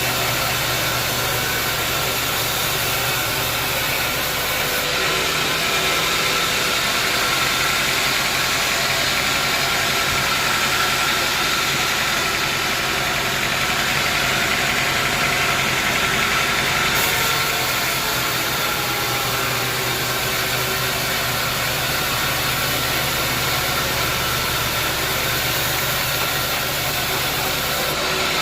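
Band sawmill running steadily with a continuous mechanical noise.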